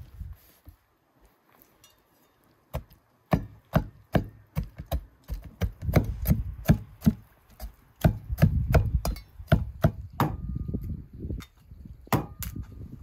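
Kitchen knife cutting up a raw guinea fowl on a wooden cutting board: a run of sharp, irregular knocks as the blade strikes the board, about two or three a second, starting about three seconds in.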